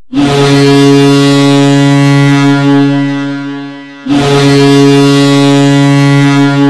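HC Stadion Litoměřice's ice-hockey goal horn sounding two long, deep blasts at one steady pitch. The first blast fades out, and the second starts about four seconds in.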